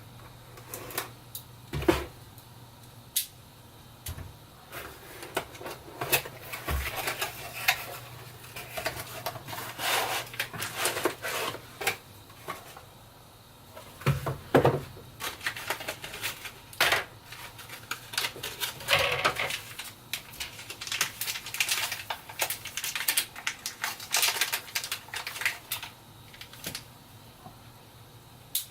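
A hard drive's packaging being opened and handled by hand: irregular crinkling, rustling and clicking of cardboard and plastic.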